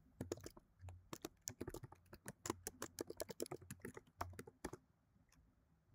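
Faint typing on a computer keyboard: a quick run of key clicks entering a name and email address, stopping about three-quarters of the way through.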